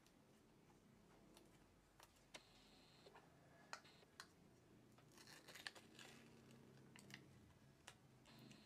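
Near silence with faint scattered clicks and light handling noises, a small cluster of them about halfway through.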